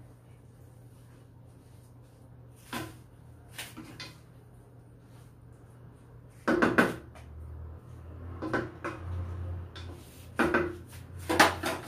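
A spatula knocking and scraping against a wok as stir-fried noodles are tossed, in scattered strokes with the loudest cluster about two-thirds of the way through. A low steady hum runs underneath.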